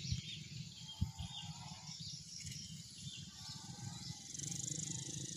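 Faint open-air ambience: small birds chirping in short calls over a steady high insect hiss. Wind rumbles on the microphone, with two brief thumps, one near the start and one about a second in.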